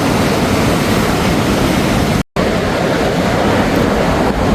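Sea surf breaking, mixed with wind rushing over the microphone: a loud, steady roar of noise, broken by a brief cut to silence about halfway through.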